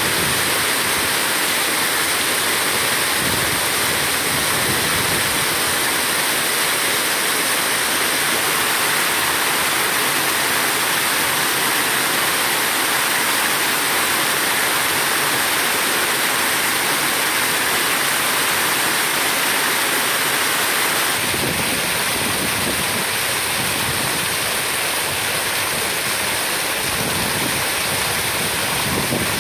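Water pouring over a small concrete weir and splashing into the basin below: a steady rushing splash.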